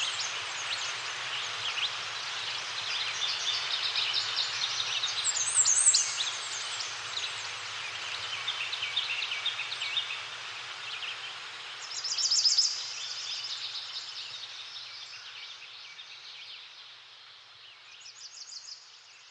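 Forest bird chorus: many small birds chirping and trilling over a steady hiss, with one loud rapid trill about two-thirds of the way through. The whole sound fades out near the end.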